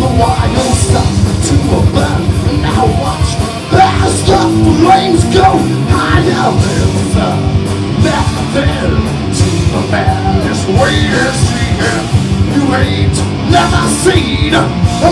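Heavy rock band playing live and loud, with distorted guitars, pounding drums and shouted vocals.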